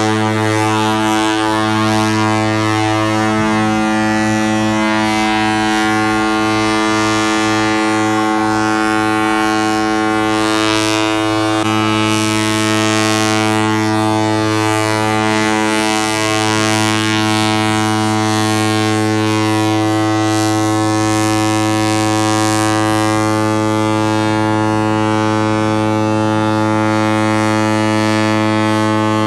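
Cruise ship's horn blowing one long, steady, unbroken blast, sounded to mark the arrival of the new year.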